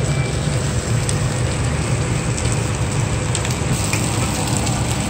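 Meat sizzling on a tabletop Korean barbecue grill plate, a steady hiss and crackle over a low steady hum, with a few faint clicks.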